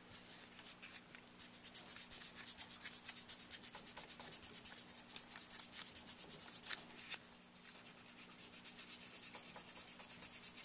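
600-grit sandpaper rubbed by hand over a cured acrylic (DP810) fill on a metal saxophone mouthpiece's bite plate, in quick short back-and-forth strokes, several a second, with a short pause about two-thirds of the way through. This fine final sanding takes the scratches out of the repair.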